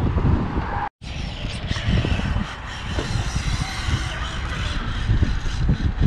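Wind rumbling on the microphone, cutting out completely for an instant about a second in, with a higher hiss above it afterward.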